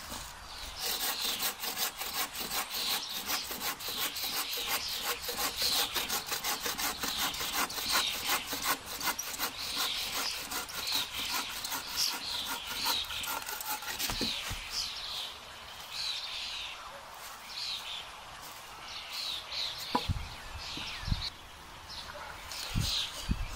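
Bow saw cutting through a thin branch in quick, even back-and-forth strokes. The strokes thin out and stop a few seconds past the middle, and a few dull knocks follow near the end.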